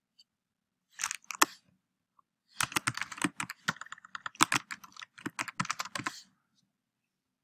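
Typing on a computer keyboard: a few clicks about a second in, then a quick run of keystrokes that stops near the end.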